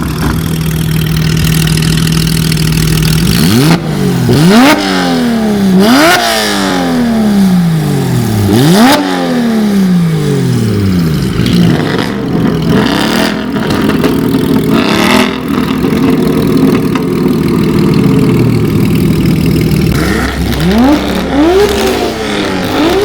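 Car engine idling, then revved in a series of sharp blips, the revs climbing fast and falling back more slowly each time. It holds at higher revs for several seconds, drops back to idle, and is blipped again near the end.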